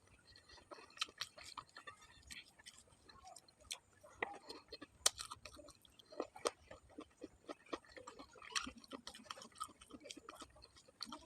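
Close-up chewing and mouth sounds of a person eating chicken and potato curry: a string of soft, irregular clicks and smacks.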